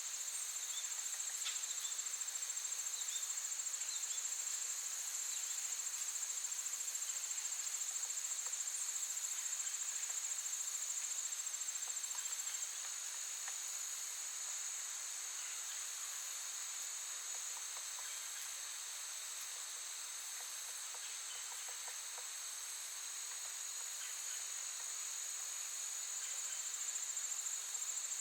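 Crickets chirping in a steady, continuous high-pitched trill, with a few faint short bird chirps over it, turning a little softer about halfway through.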